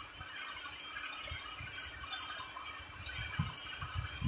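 AŽD 71 level-crossing warning bell ringing in quick, evenly spaced strokes, about three a second. Under it, the wheels of passing tank wagons knock low and dull over the crossing, more strongly near the end.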